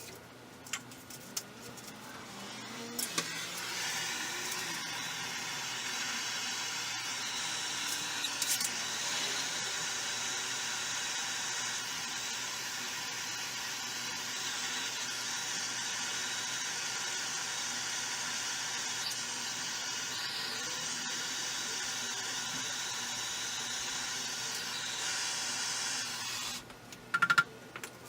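A steady hiss that starts about three seconds in, holds level for over twenty seconds and cuts off suddenly near the end, with a few sharp clicks before it starts and after it stops.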